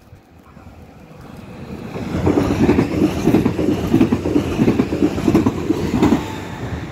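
Bombardier Talent 2 (class 442) electric multiple unit passing close by, growing louder as it approaches. Its wheels clatter in a steady rhythm of about three beats a second over the rail joints, then the sound falls away near the end.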